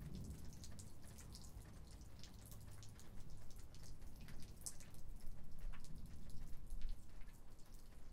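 Light rain: scattered raindrops tapping on surfaces, several a second and more of them in the second half, over a faint low rumble.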